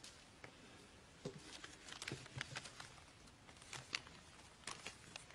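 Near-quiet pause filled with faint, irregular clicks and rustles from a seated congregation in a large church.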